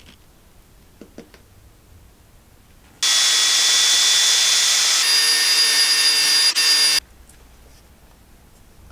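18V cordless drill spinning a paddle mixer in a bucket of pigmented epoxy resin. It starts abruptly about three seconds in and runs steadily for about four seconds before stopping, its whine changing pitch partway through with a brief dip near the end.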